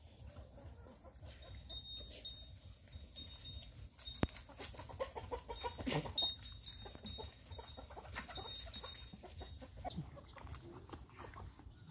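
Chickens clucking among farmyard animal sounds, with a louder call about six seconds in and short high-pitched chirps repeating in the background.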